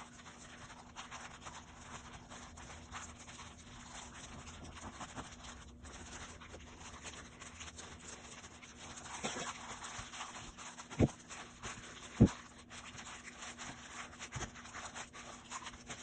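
A plastic-gloved hand kneading sticky dough in a glass bowl: soft squishing and plastic rustling, with two dull thumps about eleven and twelve seconds in.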